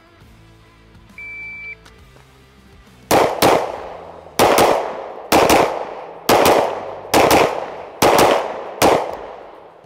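Springfield Armory Prodigy 1911 DS 9mm pistol fired outdoors: about a dozen loud shots, mostly in quick pairs about a second apart, each with a short echo trailing off.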